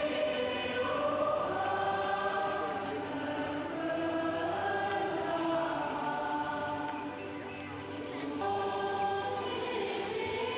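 A group of voices singing a hymn together in a church, with long held notes that move slowly from pitch to pitch.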